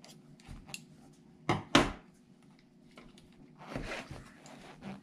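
Small clicks and knocks from hands working on the plastic and metal chassis of an ECX Temper Gen 2 1/18 RC rock crawler: two sharp clicks about a second and a half in, then a brief scuffing rustle near four seconds.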